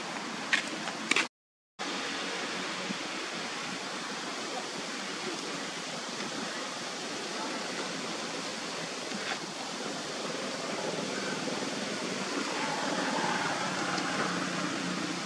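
Steady, even rushing hiss of outdoor background noise, with a few sharp clicks near the start and a brief dropout to silence about a second and a half in.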